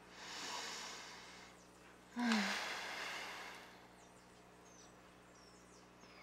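A woman draws a deep breath in, then lets out a long sigh about two seconds in, her voice dropping in pitch as it starts and the breath trailing off over a couple of seconds.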